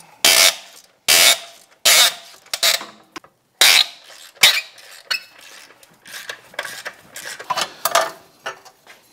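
Hand socket ratchet being swung back and forth on a bolt of the motorcycle's exhaust mounting, giving repeated short bursts of clicking, about one to two a second, that thin out in the second half.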